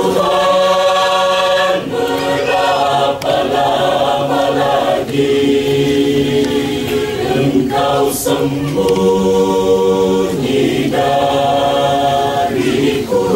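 Church choir singing a cappella in several-part harmony, holding long chords that shift every two to three seconds.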